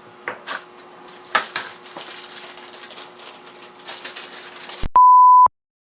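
Small parts being handled: light clicks and rattles of metal and plastic. Near the end the sound cuts off for a loud, steady half-second beep at one pitch, an edited-in censor bleep, followed by dead silence.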